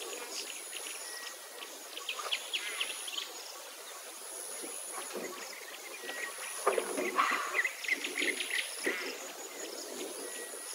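Birds chirping in short bursts, two busier spells about two and seven seconds in, over a high, thin buzz that switches on and off every second or two.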